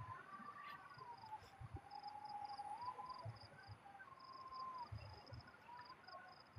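Crickets chirping in rapid, steady pulses, with a faint thin tone that wavers slowly up and down in pitch, and a few soft low thumps.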